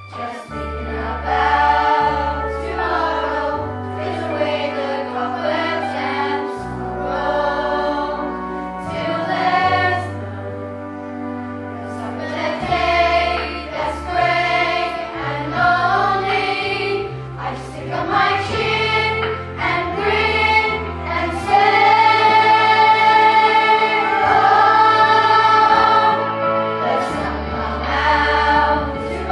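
A stage-musical cast of children and adults singing a number together over instrumental accompaniment with a moving bass line. The voices swell and hold long notes about three quarters of the way through.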